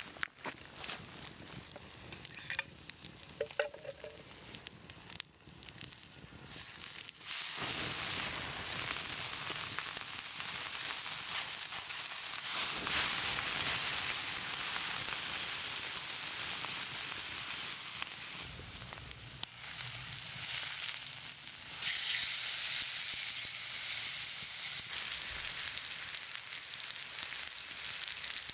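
Food sizzling on a hot cooking stone over a fire. A few scattered ticks and clicks come first, then the sizzle rises sharply about a third of the way in and holds loud and steady, swelling twice more.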